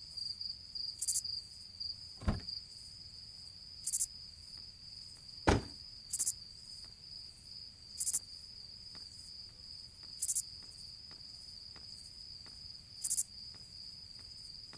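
Crickets and other night insects chirping steadily, a constant high trill with short pulses every couple of seconds. Two sharp thumps cut through, about two seconds and about five and a half seconds in, the second the louder.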